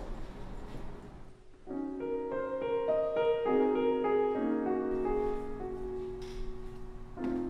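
Piano music that comes in about a second and a half in, a slow series of notes over held lower notes.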